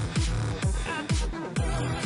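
Electronic dance music with a steady kick drum, about two beats a second, and crisp hits between the beats.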